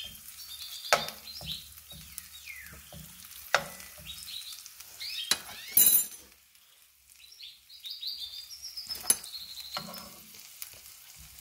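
Butter sizzling as it melts in a frying pan around a frying egg, with a metal spoon clinking against the pan several times; the sharpest clink comes about six seconds in.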